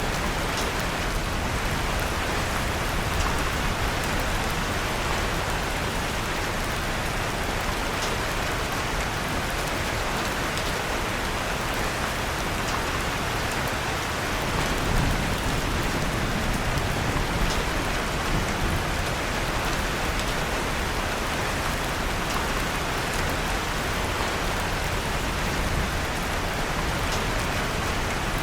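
Steady rain falling, mixed with faint crackling from a wood fire in a fireplace, with a slight low swell about halfway through.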